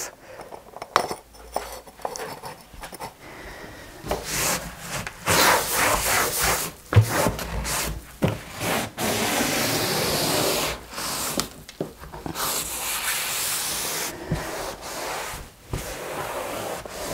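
Cloth wiping and scrubbing a windowsill in repeated strokes of a second or two each, with a few light knocks in between.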